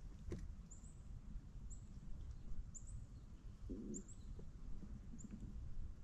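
A small bird chirping repeatedly: short, high-pitched chirps, one or two a second, over a faint low rumble of wind. There is a brief low thud just before four seconds in.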